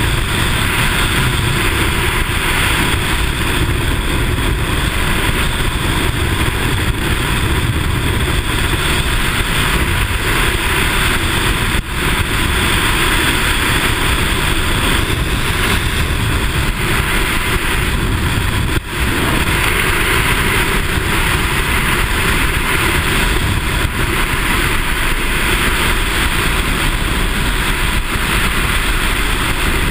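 Loud, steady rush of freefall wind buffeting a skydiver's body-mounted camera microphone, dipping for a moment twice.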